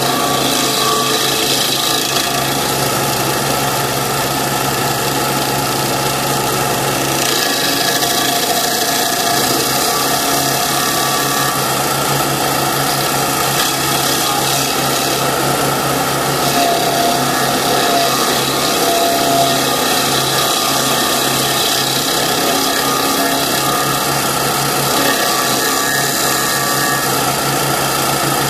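Terminator stump grinder on a Kanga mini loader, its engine running under load while the cutting wheel grinds steadily into a tree stump. The low engine hum shifts about seven seconds in.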